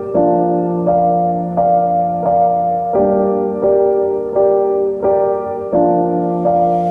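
Background music: a slow piano melody with sustained notes, changing about every half second over a held low note.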